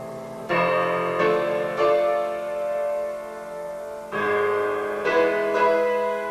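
Piano being played: chords struck in two groups of three, each left to ring and fade.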